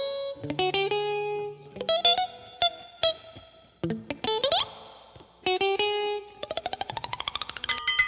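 Electric guitar playing alone: single plucked notes and short phrases that ring out. About halfway through comes a string bend rising in pitch, and near the end a fast rising run of quick notes.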